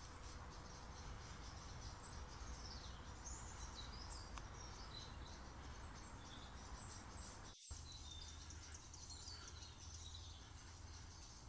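Faint birdsong in woodland: many short, high chirps and twitters from several small birds over a low steady background rumble, cut off briefly about seven and a half seconds in.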